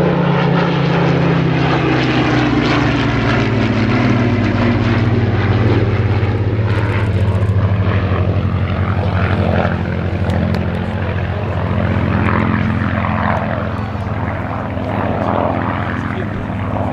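Supermarine Spitfire Mk XVI and Hawker Hurricane Mk IIc flying together, their Merlin V12 piston engines and propellers making a loud, steady drone. The pitch slides down over the first few seconds as they pass, and the sound eases off near the end as they draw away.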